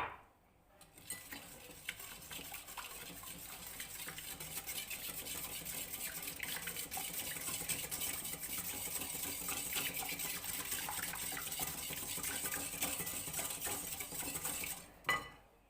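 Whisking in a bowl: a utensil beats rapidly and steadily against the bowl for about fourteen seconds, a continuous clinking scrape, with a single knock at the start and another near the end.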